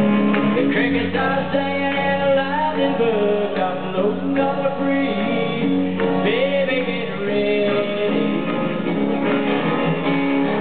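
Country-rock band playing live: a man singing lead at the microphone over electric guitar and the band.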